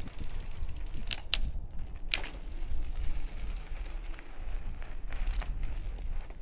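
Mountain bike rolling on icy pavement during a backwards wheelie: a low steady rumble with a few sharp clicks and crunches, the loudest about a second and two seconds in.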